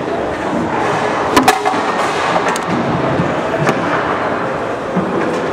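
Sharp clacks of foosball play, the ball and rod men striking on a table, over a steady hubbub of a busy hall; the two loudest clacks come close together about a second and a half in.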